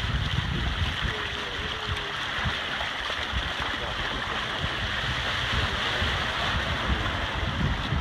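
Water rushing and splashing along the hull of a sailboat under way: a steady hiss with an irregular low rumble of wind on the microphone.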